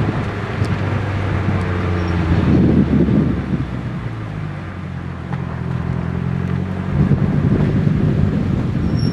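Nissan 180SX's engine and exhaust running while the car is driven, heard from a camera mounted on the outside of the car, with wind rumbling on the microphone. The engine note eases off about four seconds in and picks up again near seven seconds.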